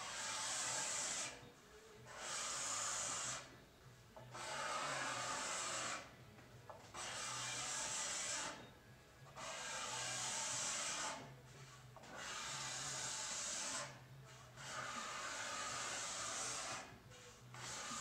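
Steel card scraper, flexed and pushed along a wooden board, taking fine shavings in long scraping strokes: about eight strokes, each a second and a half to two seconds long, with short pauses between. The scraping is clearing drum-sander mill marks to leave a smooth surface.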